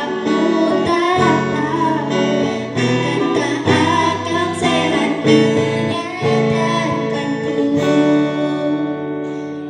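Acoustic guitar strummed, with a voice singing along: a song played in an acoustic arrangement.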